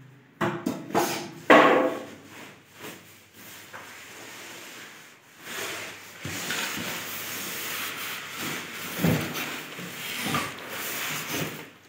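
Polystyrene packing and plastic wrap rubbing and scraping against a cardboard carton as a flat-screen TV is worked out of its box. The loudest scrapes come about a second in, followed by irregular rustling and a few dull knocks.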